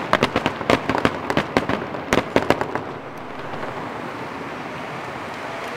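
Aerial fireworks shells bursting in a rapid string of sharp bangs and cracks for about the first two and a half seconds, then the bangs stop and only a steady wash of background noise is left.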